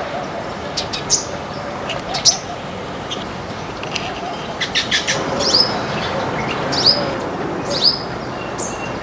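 A flock of small birds chirping: short, high, downward-sliding chirps every second or so, with a quick run of sharp clicks about five seconds in, over a steady background hiss.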